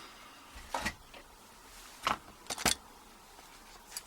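A few separate light metallic clicks and clinks, as a padlock and lock picks are handled, with a double click a little after two and a half seconds in.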